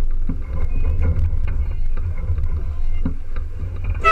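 Wind rumbling on the microphone and water washing along the hull of a small sailboat under way, with a few light knocks.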